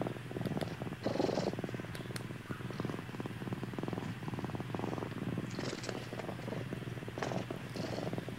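Calico cat purring very loudly while asleep: a continuous fine, rapid rattle that swells louder and eases off in waves.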